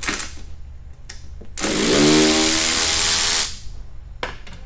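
Cordless driver with a security Torx T30 bit backing a bolt out of a hybrid battery pack's metal cover. It runs once for just under two seconds starting about a second and a half in, its motor note rising as it spins up and then holding steady, after a few light clicks of the bit being set on the bolt head.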